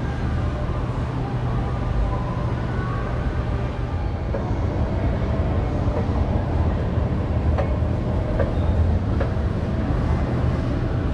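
An escalator and the building's machinery running: a steady low hum and rumble, with a few faint clicks in the middle.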